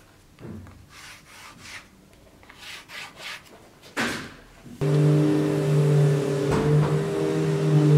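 Wooden boards rubbing and scraping against each other as they are handled, in faint scattered strokes. Just before halfway a loud, steady drone of several held tones starts suddenly and runs on, covering them.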